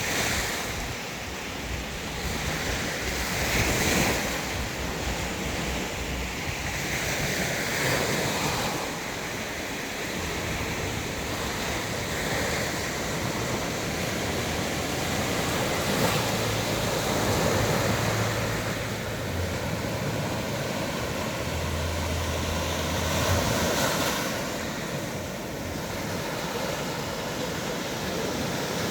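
Sea waves breaking on a beach: a steady rush of surf that swells and falls back every few seconds, with wind on the microphone.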